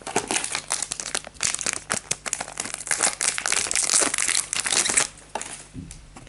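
Foil booster pack wrapper crinkling as it is handled and crumpled in the hands, a dense crackling rustle that stops about five seconds in, followed by a couple of soft taps.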